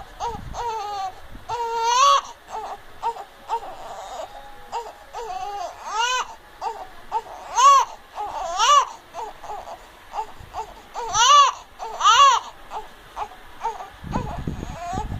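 Young infant fussing and crying in short wails that rise and fall in pitch, about six louder cries among quieter whimpering sounds.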